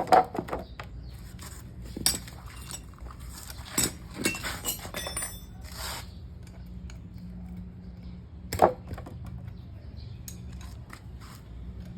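Metal tools and parts clinking and knocking while a truck differential is being worked on: a handful of sharp metallic knocks, the loudest just after the start and again near the end, over a low steady hum.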